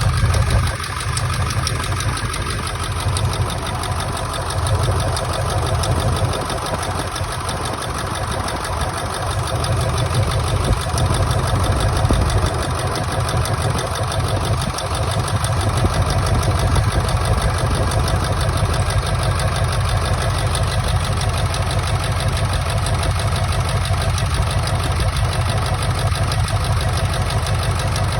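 1999 Ford F-350's 7.3 Powerstroke turbo-diesel V8 idling rough with a misfire, which the owners trace to a faulty injector.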